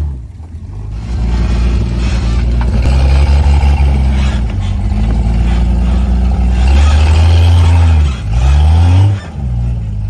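An off-road rig's engine revving hard under load on a rock climb. It is held high for several seconds, drops briefly about eight seconds in, then revs up again before easing off.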